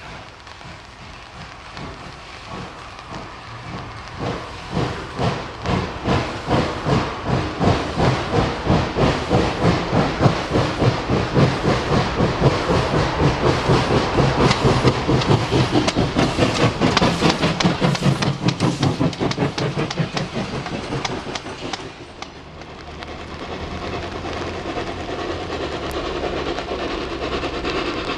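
Steam locomotive working hard, its exhaust chuffing in a regular beat that grows steadily louder as it approaches. About 22 seconds in the chuffing stops and a steady rolling rattle of the train follows.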